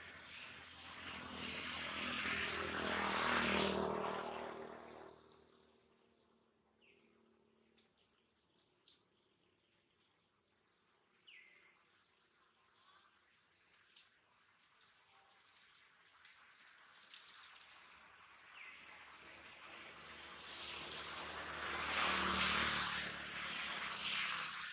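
Steady high-pitched insect chorus droning, with an engine swelling up and fading away twice: near the start and again near the end.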